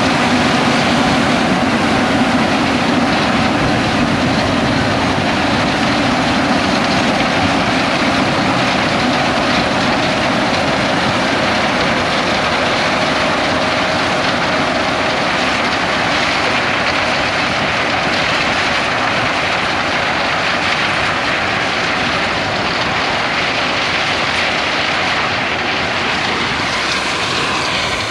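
John Deere X9 1100 combine running under load while harvesting corn with a 16-row corn head: a loud, steady drone of engine and threshing machinery.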